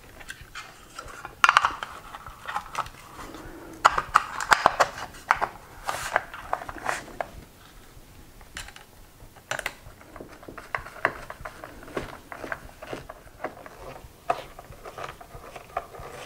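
Hand screwdriver driving screws into a metal-cased 84-volt battery charger while its metal cover and case knock together: scattered clicks and clacks, with the sharpest knocks in the first half.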